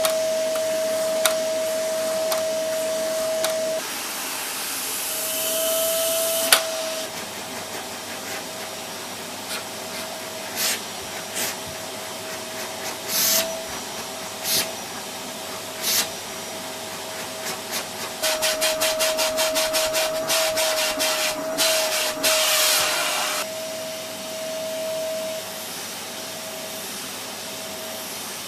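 Vacuum cleaner running with a steady whine and hiss as its nozzle is worked over a cat's fur. The sound swells in short rushes, and about two-thirds through it pulses quickly, some five times a second.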